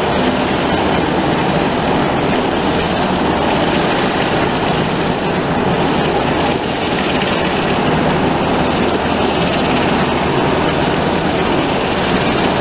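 Coast Guard MH-60 Jayhawk helicopter hovering close by with its winch line lowered for a hoist: a loud, steady rotor and turbine noise.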